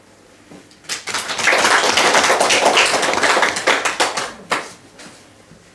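A small audience applauding, starting about a second in and dying away after about three and a half seconds with a last clap or two.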